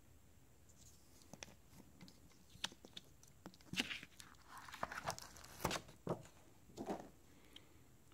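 Quiet handling noise from a cardboard retail box and its packaging: scattered clicks, then rustles and scrapes from about the middle on, as the solar panel is taken out of the box.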